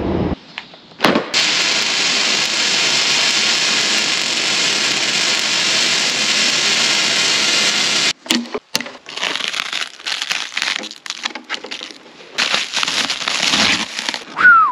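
MIG welding arc crackling and hissing steadily for about seven seconds, then cutting off. After that, plastic wrap rustling in irregular bursts as it is pulled off a hydraulic wheel motor.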